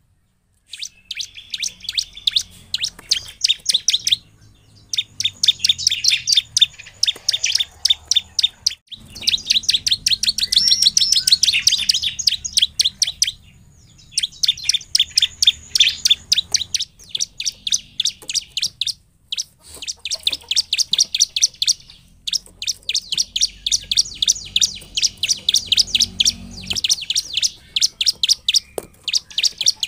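Caged bar-winged prinia (ciblek) singing continuously: rapid runs of sharp, high chirps, several a second, in phrases a few seconds long with brief pauses between them.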